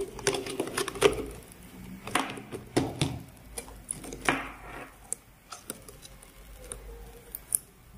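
Handling noise from a roll-up silicone keyboard and its cable: irregular clicks, taps and rustles as the keyboard is rolled and the cable coiled by hand, busiest in the first half and sparser toward the end.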